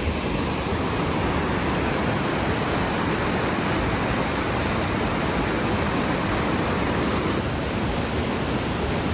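Steady rush of a fast mountain river over rocks.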